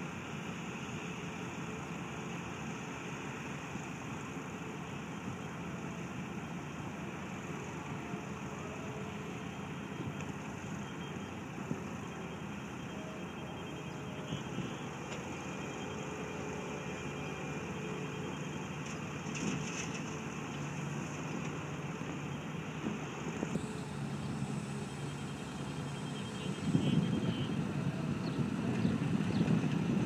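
Diesel engines of heavy construction equipment running steadily at a building site, growing louder and rougher near the end.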